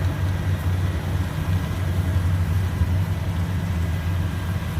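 Rice combine harvester diesel engine running with a steady, unbroken low drone.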